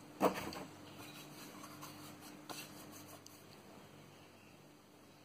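A hand rubbing linseed oil into a wooden backsaw handle: a short scuffing rub just after the start, then faint scattered handling sounds over a low steady hum that stops about three seconds in.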